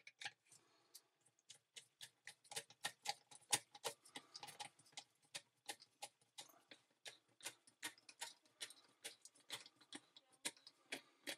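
Screwdriver turning a dishwasher sump's fixing screw: a steady run of quiet clicks, about three or four a second.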